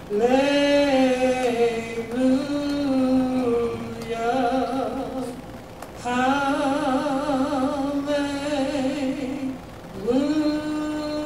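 A single voice singing a slow gospel song unaccompanied, holding long notes with vibrato. There are two long phrases with a short breath between them, and a third begins about ten seconds in.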